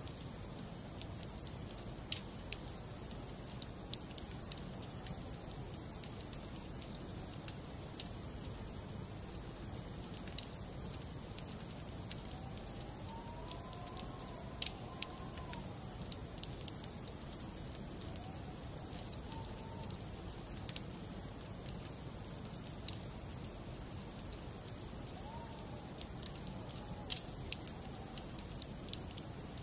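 Wood fire burning in a fireplace: a steady low hiss with irregular sharp crackles and pops of burning logs scattered throughout.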